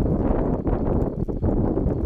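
Wind buffeting the microphone: a loud, uneven low rumble, broken by a few short knocks.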